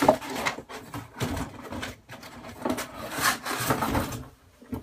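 Rustling, rubbing and light knocking as a box and its packaged contents are handled, coming in uneven bursts.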